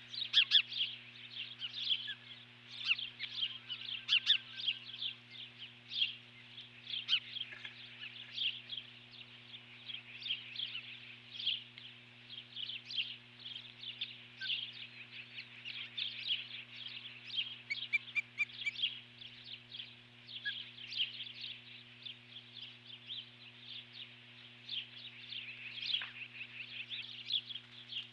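Ospreys calling in a steady run of short, high, whistled chirps that slide downward, about two or three a second, over a constant low electrical hum.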